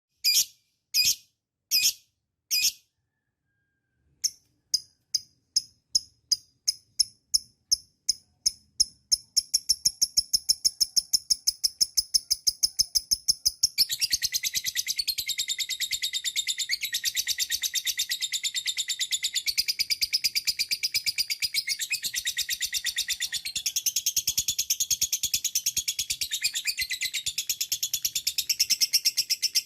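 Lovebird in its long 'ngekek' song. It gives four sharp single calls, then after a short pause a run of clipped 'kek' notes that speeds up into a long, continuous rapid chatter, growing fuller about halfway through.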